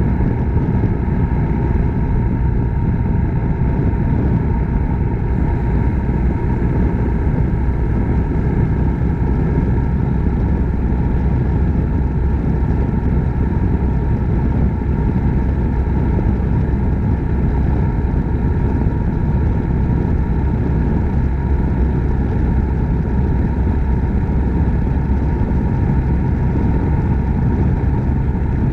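Suzuki Grasstracker Big Boy's 250 cc single-cylinder four-stroke engine running steadily while riding at an even speed, mixed with road noise.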